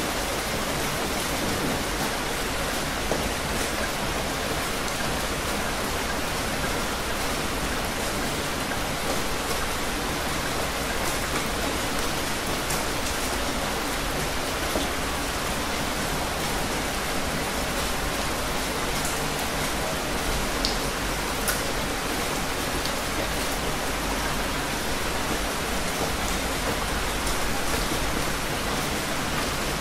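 Heavy rain falling steadily, a dense even hiss with a few sharper drop ticks now and then.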